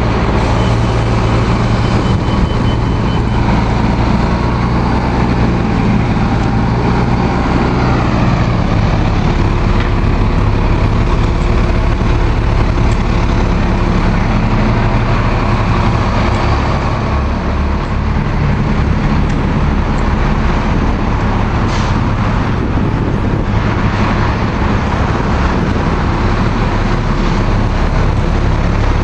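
City transit buses' engines running at a bus bay: a loud, steady low engine drone whose tones shift as buses idle and move, with a brief hiss about 22 seconds in.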